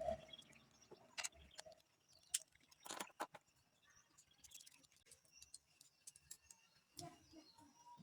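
Faint, scattered clicks and taps of a plastic router antenna housing being handled and pulled apart, with a few louder knocks among long quiet stretches.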